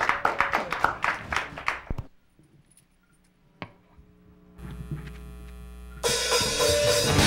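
Hand clapping for about two seconds, then a short quiet with a steady low hum, then a rock band of drums, cymbals, electric guitars, bass and keyboard starts playing loudly about six seconds in.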